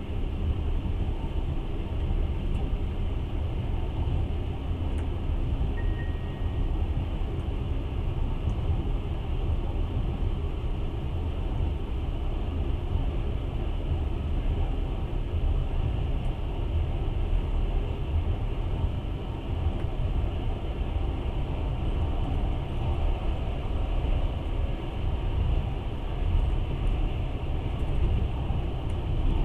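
Passenger train running along the track, heard from inside the carriage as a steady rumble, with a faint high tone for about a second, about six seconds in.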